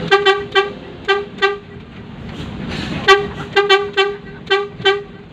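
Tour bus horn sounded in two rapid series of short toots, each on the same single pitch, over the bus engine and road noise.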